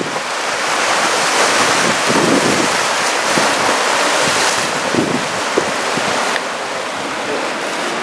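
Ocean surf breaking and washing ashore, a steady rush of waves, with wind buffeting the microphone.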